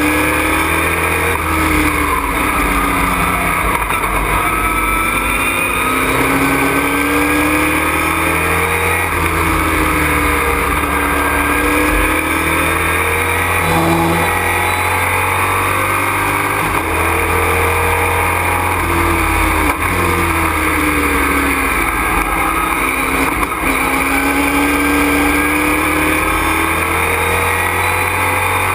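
Race truck's engine heard from inside the cockpit at racing speed, its pitch climbing under acceleration and dropping off repeatedly through gear changes and corners, over a steady rumble of road and drivetrain noise.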